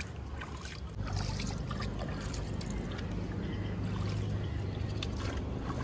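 Water splashing and sloshing in shallow river water, with many short splashes, over a low steady rumble that grows stronger about a second in.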